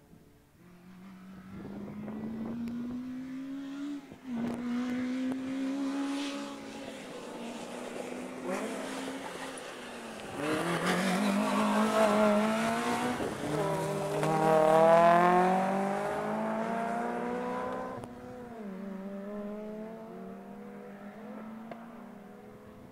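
A rally car's engine drives past under hard acceleration. Its note climbs and drops several times as it goes through the gears, loudest as it passes, then fading away.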